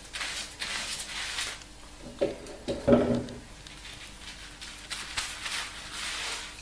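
Fingers rubbing shampoo lather through twisted afro hair at the roots, heard as a run of short rubbing strokes. About three seconds in there is a brief hum from the person's voice.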